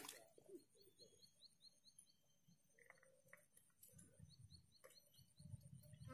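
Near silence, with a bird repeating short, high chirps in quick runs of about six a second.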